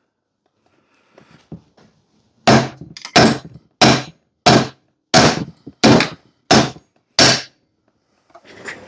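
A wooden-ended drift striking down on the seized piston of a Briggs & Stratton Intek engine: two light knocks, then eight sharp, even blows about 0.7 s apart. The piston is stuck at the top and does not move.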